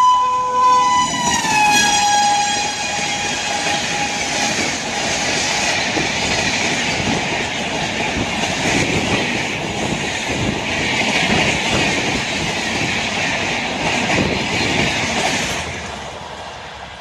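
Electric locomotive's horn sounding as it passes, its note dropping in pitch about a second in and fading out. Then the express train's coaches rush past with rhythmic wheel clatter, fading away near the end.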